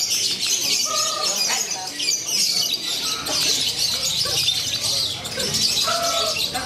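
Lovebirds chattering and trilling without pause in a dense, high-pitched din, the long continuous trill (ngekek) that lovebirds are judged on at song contests. Two brief steady tones cut through, about a second in and near the end.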